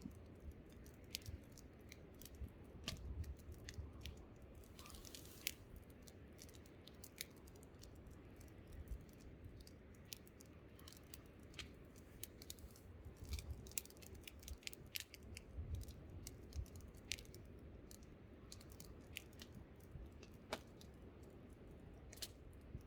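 Wood campfire crackling with frequent sharp pops, over a low rumble of wind. A short hiss comes about five seconds in.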